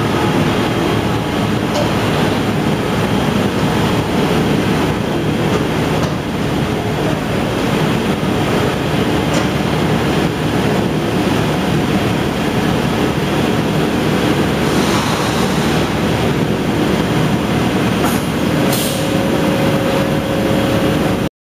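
Steady, loud din of industrial machinery on a leather-processing line, with a faint steady hum rising out of it near the end; the noise cuts off abruptly just before the end.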